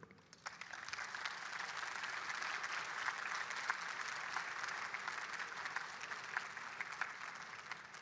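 Audience applauding: a dense patter of many hands clapping that builds over the first second, holds steady, and dies away near the end.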